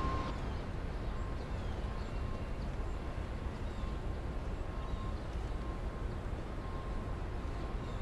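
Outdoor city ambience: a steady low rumble, with faint short high chirps now and then.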